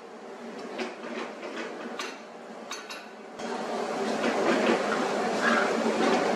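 A steel ladle stirring thick curry gravy in a steel pan over a gas burner, with sharp clinks and scraping against the pan over the steady hum of a commercial kitchen. About three seconds in the noise of the pan and burner grows louder and denser.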